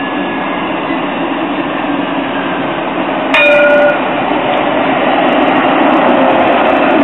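Alstom Citadis tram approaching and drawing into the stop, its rolling noise growing slightly as it nears. About three seconds in it sounds its warning bell once, a single short ringing ding.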